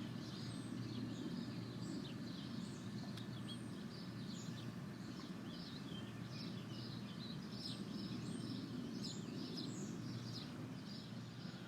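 Birds chirping, many short calls scattered throughout, over a steady low background hum.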